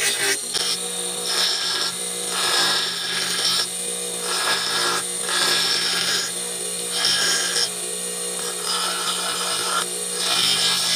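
Bench grinder running with a steady hum while a carabao horn slingshot frame is ground against its wheel in short passes. About eight bursts of rasping grinding noise come roughly a second apart, as the horn is pressed on and lifted off.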